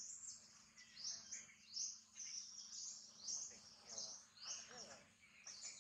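Birds chirping over and over, high-pitched short calls about twice a second, over a faint steady low hum.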